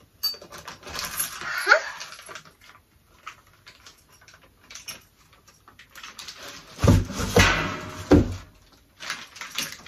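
A small plastic bag of screws and fittings being handled, crinkling and rustling with clicks of the parts inside, loudest about seven to eight seconds in with a few deep bumps. A short rising whine sounds about one and a half seconds in.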